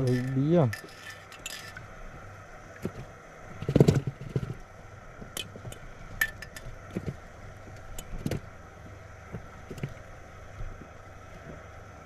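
Fishing gear being handled aboard an inflatable boat while live bait is hooked on: scattered clicks and light clinks, with a louder cluster of knocks about four seconds in.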